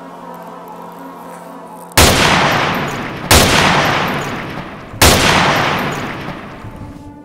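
Three gunshots, the second about a second and a half after the first and the third about two seconds later, each with a long echoing tail. A soft musical drone sits underneath.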